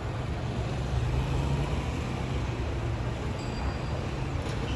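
Steady low drone of a Cessna U206 Stationair's piston engine and propeller passing overhead.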